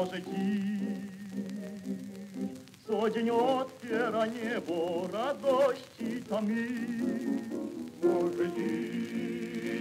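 Male vocal ensemble singing in close harmony with piano accompaniment, played from a 1930 shellac record. It opens on a long held chord, moves into a melodic line about three seconds in, and settles on another held chord near the end.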